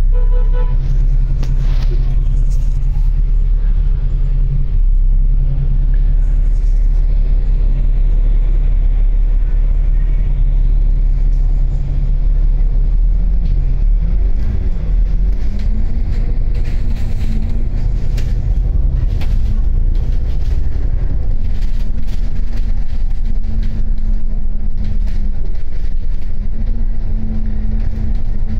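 Double-decker bus running, heard from inside the cabin: a steady low rumble, with the engine's hum rising and wavering in pitch about halfway through as it picks up speed, then holding steady near the end, with light rattling clicks.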